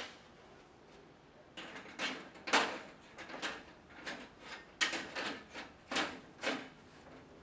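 A run of about a dozen light knocks and thuds as a tile of a Sapphire modular office wall panel is hooked onto the panel frame and tapped into place, the loudest about two and a half seconds in.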